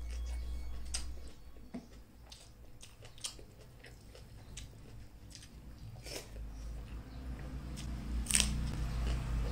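Close-up eating sounds: chewing rice and salad, with scattered wet mouth clicks and the soft sound of fingers mixing rice on a plate. One sharper click comes a little past eight seconds, as a handful goes into the mouth.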